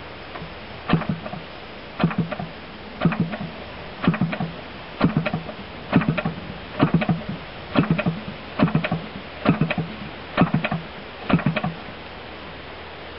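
Irvine 120 model airplane engine turned over by hand with its propeller to prime it, throttle wide open: about a dozen flicks, roughly one a second, each a short clatter of knocks from the prop and engine turning through its stroke. The flicks stop near the end, and the engine does not start.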